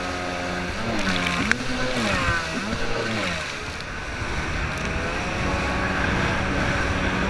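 Kawasaki JS550 stand-up jet ski's two-stroke twin engine running at speed, its revs swinging up and down several times as the ski hops over chop, then settling to a steady note. Spray and wind noise run underneath, with one sharp knock about a second and a half in.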